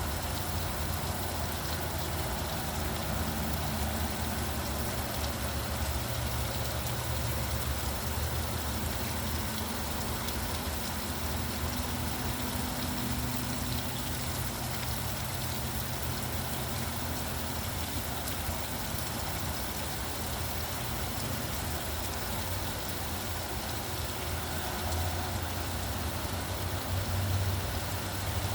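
Steady rain falling, with the low hum of road traffic and idling vehicle engines underneath, the engine rumble swelling near the end.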